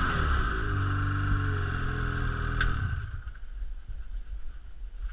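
Ski-Doo Renegade 600 E-TEC two-stroke twin snowmobile engine idling inside an enclosed trailer, then shutting off about three seconds in, with a sharp click just before it stops.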